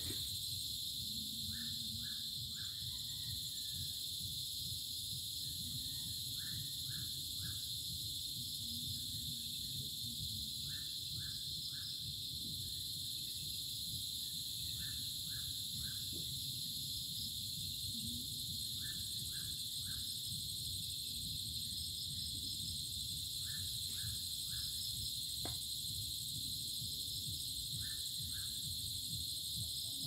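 Steady, dense chorus of crickets and cicadas, with a short call of three quick notes repeated about every four seconds and a low rumble underneath.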